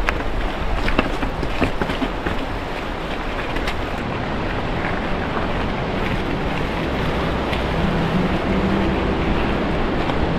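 Mountain bike clattering over a rocky singletrack, its tyres and frame knocking on the rocks under a steady rushing noise. The knocks come thick and fast for the first few seconds, then thin out to a smoother rush.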